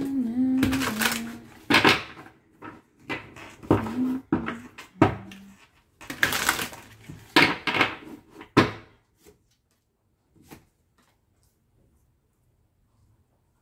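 A woman hums a few notes, then tarot cards are handled and shuffled in a run of papery rustles, slaps and taps. It goes quiet over the last few seconds.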